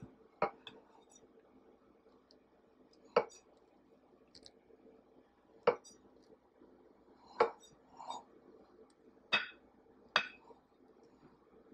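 A glass cake stand clinking as it is turned by hand while a frosted cake is smoothed: about six short, sharp clinks spread a few seconds apart, with softer knocks between.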